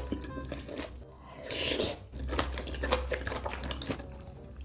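Close-up eating sounds: a person chewing food with irregular crunches and wet mouth clicks, the loudest crunchy burst about one and a half seconds in, over a faint low hum.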